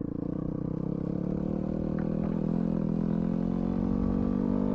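Yamaha WR250F dirt bike's single-cylinder four-stroke engine running steadily under light throttle, its pitch climbing gently as the bike picks up speed.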